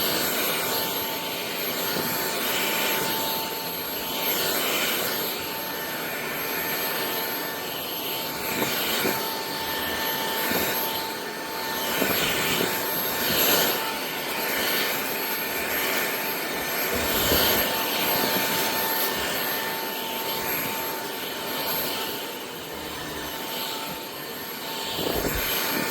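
Kermoky cordless stick vacuum running: a steady motor whine over a continuous rush of air, its loudness rising and falling a little.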